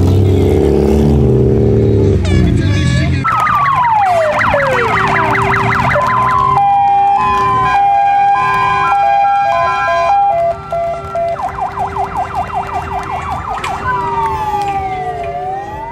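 A car engine revving for the first few seconds, then loud emergency-vehicle sirens that cycle through modes: fast yelping sweeps, a two-tone hi-lo alternation, more fast sweeps, and slower wailing glides near the end.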